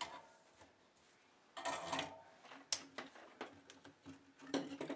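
Tools and parts being handled on a workbench: a sharp click at the start, a rattling scrape about a second and a half in, then a run of light clicks and knocks.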